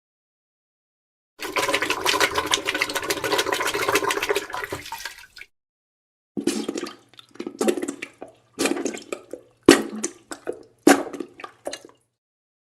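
Wet, spluttering diarrhea sound effect lasting about four seconds. After a short pause comes a run of about six short farts, each a separate blast.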